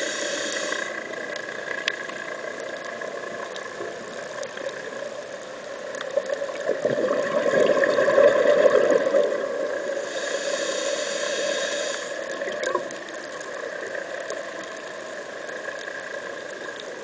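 Underwater sound picked up through a camera's housing: a steady muffled drone with a hiss, swelling louder for a few seconds in the middle, with brief stretches of higher hiss near the start and about two-thirds of the way in.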